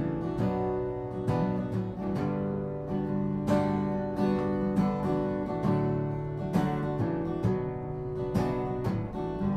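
Acoustic guitar strumming chords in a steady rhythm, with one stroke about every second and the chords ringing between strokes, as an instrumental passage of a song.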